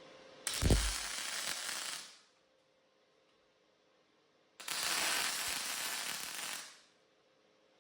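Two short bursts of electric arc welding on steel plate, tack welds, each a steady crackling hiss lasting about two seconds. A brief low thump comes as the first one starts.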